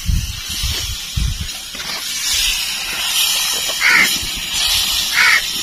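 Roti dough sizzling on a hot iron tawa over a wood fire, a steady hiss. A crow caws a few times in the second half.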